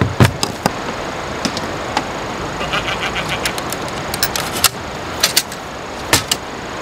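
Aluminium aircraft galley cabinet set down with two heavy thuds. Then a run of small metal clicks and sharp clanks as its door latch is turned and the door swung open. A steady stream rushes underneath.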